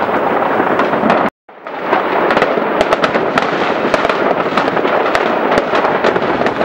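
Many fireworks going off at once: a dense, continuous crackle with frequent sharp bangs. The sound cuts out completely for a moment about a second and a half in, then resumes.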